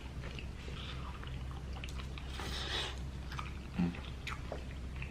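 Close-up eating sounds: chewing and smacking with scattered small clicks, and a brief hiss about two and a half seconds in.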